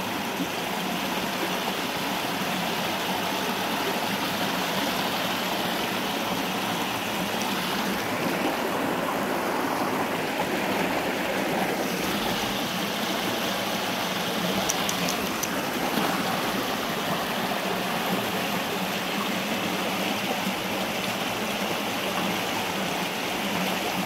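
Shallow rocky river running over stones and through a small riffle of white water: a steady, even rush of water.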